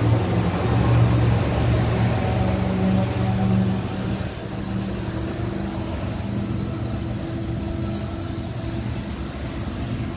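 BNSF freight train passing close by: the trailing diesel locomotive's engine runs under power, loudest over the first few seconds and then fading, after which the double-stack container cars roll past with a steady noise of wheels on rail.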